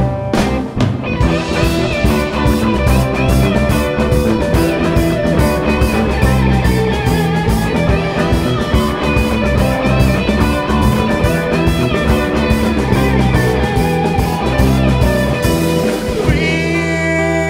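Live rock band playing: electric guitars over bass guitar and a drum kit keeping a steady cymbal beat. About a second and a half before the end the drums stop, leaving guitars and bass holding ringing notes.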